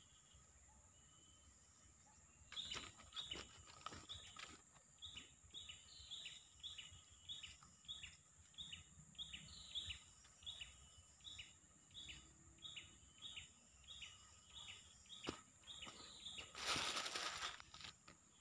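A wild bird calling a repeated short high note that drops in pitch, about twice a second, over a steady insect-like hum. Near the end comes a brief loud rustle.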